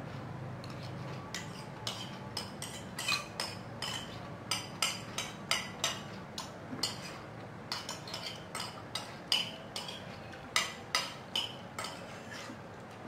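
Metal spoons clinking and scraping against plates during a meal: short, sharp, irregular taps about two a second, starting about a second in.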